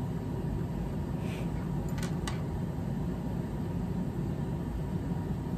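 Steady low background hum, with a few faint light clicks of small carburetor parts being handled about one and a half to two and a half seconds in.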